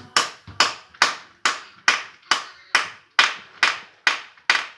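A steady run of about a dozen sharp strikes, a little over two a second, each dying away quickly.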